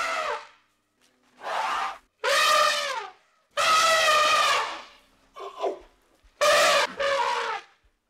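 African elephants trumpeting: a series of short, brassy calls, about one a second, each bending down in pitch as it ends.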